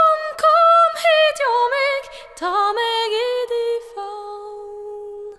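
A woman singing alone without accompaniment, a song in Norwegian, moving through several sung notes and ending on a long held note that stops near the end.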